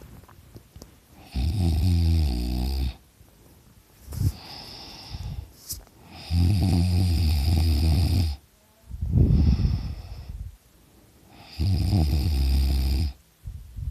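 A teenager snoring loudly with his mouth open: three loud, rattling, low-pitched snores about five seconds apart, each lasting a second and a half to two seconds, with quieter breaths between them.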